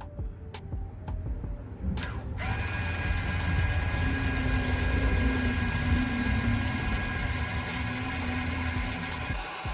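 A few faint clicks, then the rear electric parking brake caliper motor of a Volvo V60, wired straight to the battery, runs with a steady whine as it winds the brake piston back into the caliper. It starts about two seconds in and stops abruptly near the end, with the piston retracted.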